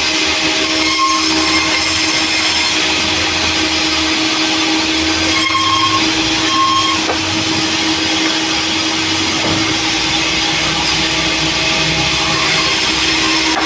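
Sawmill machinery running, a loud steady mechanical drone with a constant hum, with a few brief higher tones about a second in and again around the middle.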